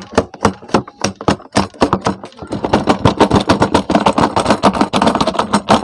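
Plastic toy scooter wheel clattering on its axle in a rapid series of knocks, which get faster and closer together after about two and a half seconds. The wheel's axle hole has worn oversized, so it wobbles and knocks.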